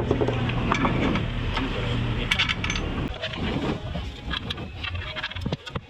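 Metallic clinks and taps of tools and metal parts being handled during engine work, over a low steady hum that fades out about two seconds in.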